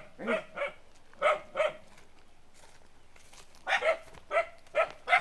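A dog barking in short, repeated barks: a run of about four, a pause of about two seconds, then another run of about five.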